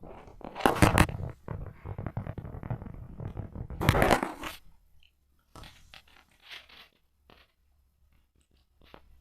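Rustling and crinkling noises, with two loud bursts about a second in and about four seconds in, then scattered small clicks and rustles.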